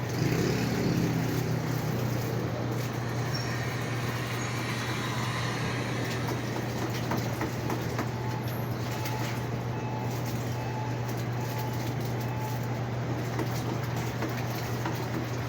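Panasonic fully automatic washing machine running, with a steady low motor hum under a wash of churning noise.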